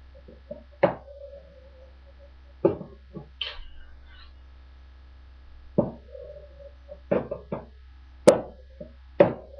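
Tech Deck fingerboard knocking and clacking on cardboard boxes and a wooden floor: about ten sharp hits at irregular intervals, a quick run of three about two-thirds through and the loudest just after, some followed by a short ring.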